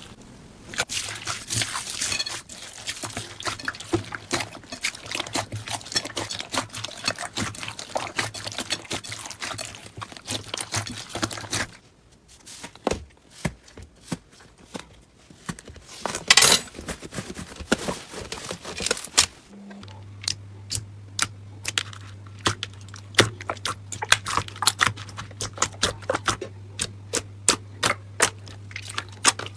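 Slime being squeezed and worked by hand: dense sticky crackling for the first twelve seconds, then after a short lull one loud squelch. From about twenty seconds in, a run of sharp pops and clicks several a second over a low hum.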